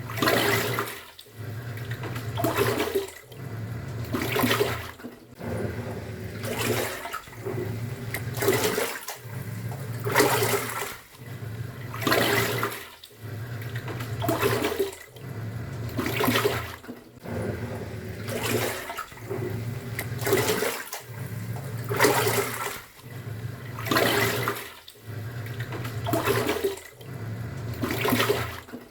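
Top-loading pulsator washing machine agitating a load in water: the motor hums as the pulsator turns one way, then the water sloshes as it reverses, in an even rhythm about every two seconds.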